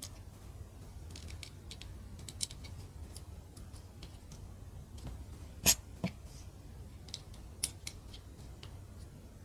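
Mini plastic building bricks being handled and pressed together: scattered small clicks, with one sharp, louder click a little past halfway and a few more after it.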